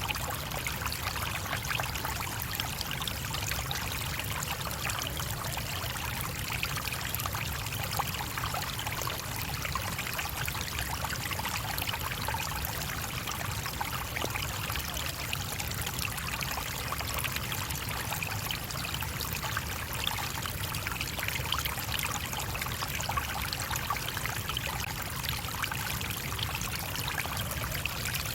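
Small stream flowing over rocks: a steady rushing and trickling of water that stays even throughout.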